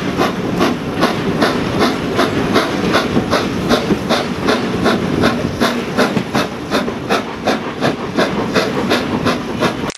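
BR Standard Class 4 steam locomotive working a passenger train, its exhaust beats coming in a quick, even rhythm of hissing chuffs, about three a second, heard from a carriage window over the steady rumble of the coaches on the rails.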